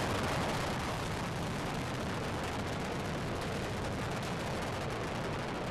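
Space Shuttle Discovery's rocket engines and solid rocket boosters roaring steadily during ascent, slowly fading as the shuttle climbs away.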